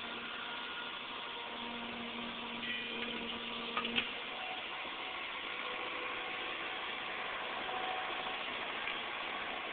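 Hydraulic excavator running steadily while lifting a traction motor off locomotive trucks, a steady tone in its sound cutting off about four seconds in, right after a couple of sharp metallic knocks.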